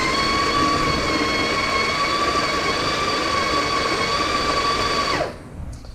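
Breville Smart Grinder Pro conical burr grinder running, its motor giving a steady whine over the rasp of beans being ground. It stops about five seconds in, the pitch dropping as it winds down. This is a purge grind of fresh beans to flush out cleaning-tablet residue.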